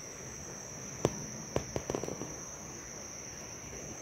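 Forest insects droning in one steady high pitch, with a handful of sharp clicks or snaps between about one and two seconds in.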